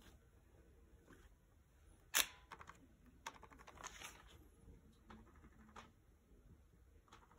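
Handling noise: a sharp click about two seconds in, then a few softer clicks and a short rustle, all at a low level.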